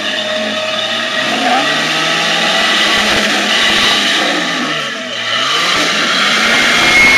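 Lifted Jeep Cherokee XJ's engine revving under load as it crawls up rock ledges. The pitch climbs, drops back about five seconds in, then rises again.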